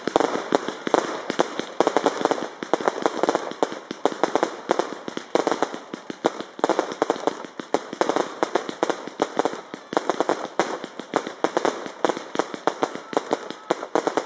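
Fireworks going off in rapid succession: a continuous stream of sharp bangs and crackles, several a second.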